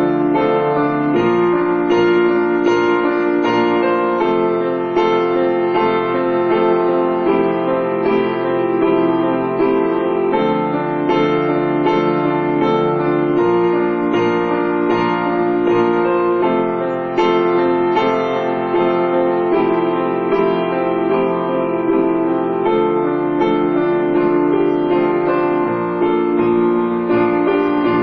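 Piano music with long held notes and chords, at a steady level.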